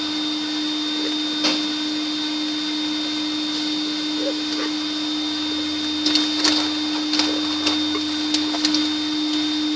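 Ryko Softgloss Maxx soft-touch car wash running in its bay, heard through the car's windshield: a steady whirring buzz with one strong humming tone. A few sharp clicks come in the second half.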